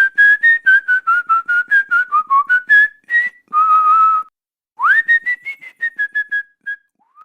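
A person whistling a melody in quick short notes, in two phrases. The first ends on a longer held note; the second begins with an upward swoop a little later.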